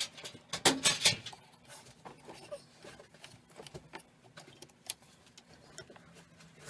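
Clicks and knocks from hands handling a plastic-and-metal electric chainsaw chain sharpener, loudest about a second in, then lighter scattered ticks.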